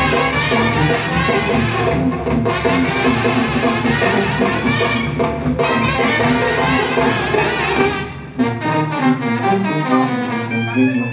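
Live brass band music, with horns playing a lively melody over a full low bass. About eight seconds in the deep bass drops out and the horns carry on more lightly.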